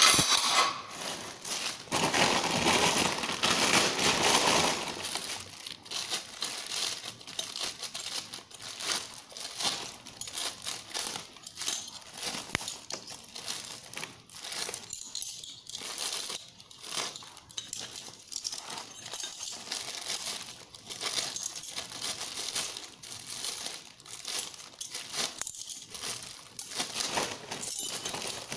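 Clear plastic packaging crinkling and rustling as a bundle of metal cutlery is unwrapped, with light clinks of the forks and spoons against each other. The rustling is heaviest a couple of seconds in.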